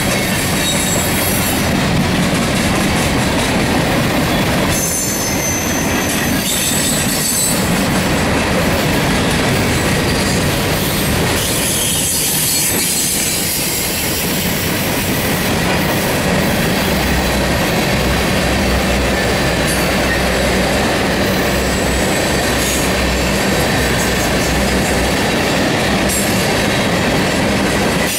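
Norfolk Southern freight train's hopper and tank cars rolling past close by: a steady, loud rumble and rattle of steel wheels on the rail, with clickety-clack over the joints and high-pitched wheel squeal at times.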